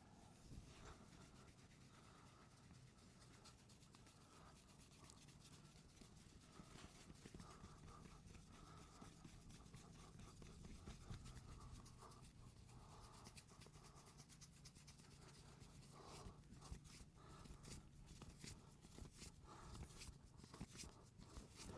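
Very faint scratching and rubbing of hands massaging a scalp through the hair, the soft strokes growing busier in the last few seconds, over a faint steady low hum.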